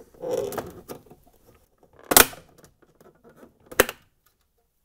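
Two sharp plastic clicks about a second and a half apart, the first the louder: the clips of the white plastic cover over a Samsung fridge freezer's ice maker letting go as the cover is pushed out at the sides and lifted off the freezer door.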